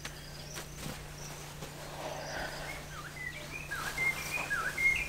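Quiet outdoor ambience: faint short bird chirps and small swooping calls, coming more often in the second half, with faint high insect chirping behind them.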